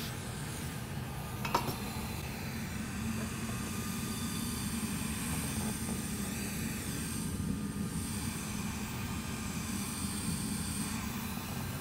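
Hot air rework station blowing steadily, a rumbling hiss of air, with one small click about one and a half seconds in.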